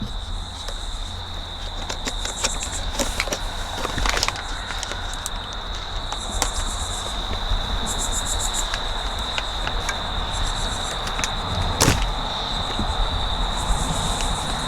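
Crickets trilling steadily, with recurring bursts of higher pulsed chirping, over a low background rumble. A few sharp clicks, the loudest about four and twelve seconds in, come from a flathead screwdriver prying at the plastic sun-visor clip.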